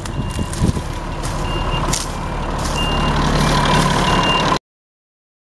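Tractor running with a New Holland 650 round baler working behind it, the engine pulling harder from about halfway, while a short high electronic beep repeats about every second and a bit. The sound cuts off abruptly near the end.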